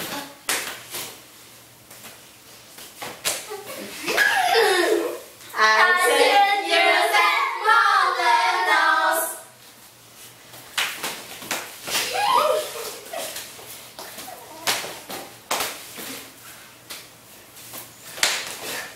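Hands slapping and patting on heads, shoulders and knees, with claps, during an action song done without words. A few seconds of children's and a woman's voices break in between about four and nine seconds in.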